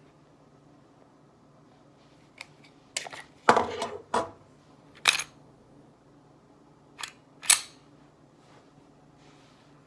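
Mechanical clicks and clacks of a Glock 35 pistol's action being worked by hand: a series of sharp clicks in two clusters, the loudest, longer clack a few seconds in.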